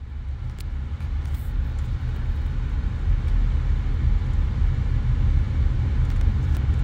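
Steady low rumble of a car driving along a paved road, heard from inside the cabin.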